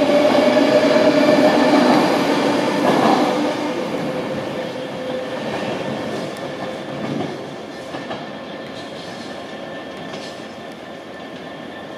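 Class 390 Pendolino electric multiple unit accelerating away. Its electric whine falls a little in pitch and the rolling noise of its wheels fades as it draws away, with a few faint wheel knocks over rail joints.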